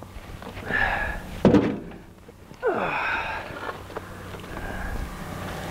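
Rocks being scraped out of the dirt and set by hand into a steel wheelbarrow tray: a sharp knock about a second and a half in, then a longer scrape and clatter about three seconds in.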